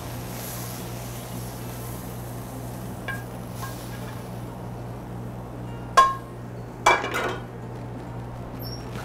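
A metal frying pan and utensil clinking against each other and a ceramic plate as sautéed peppers are pushed off onto the plate. There are light clicks about three seconds in, a sharp ringing clank about six seconds in and another clatter a second later, over a steady low hum of kitchen ventilation.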